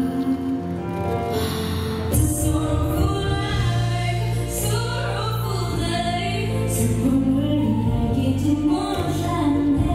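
A song with a sung melody over instrumental accompaniment; a fuller bass comes in about two seconds in.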